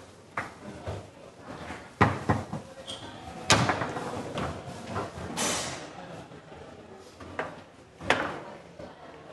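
Foosball table in play: irregular sharp clacks and bangs of the ball being struck by the rod figures and of the rods knocking in the table, the loudest about three and a half seconds in.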